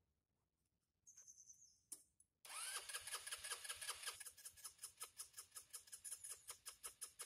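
A brief high-pitched whine about a second in, then the electric starter of a Sinnis Harrier 125 scooter spins up with a rising whine and keeps cranking its freshly re-carbed engine in rapid even pulses, about seven a second, without the engine catching.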